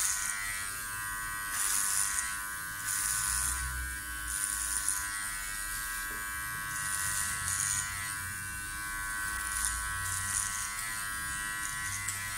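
Battery-powered Powertec TR-1700 hair clipper with a No. 3 guard running steadily. Its blades cut through thick, dense hair in short strokes, about one every second or so.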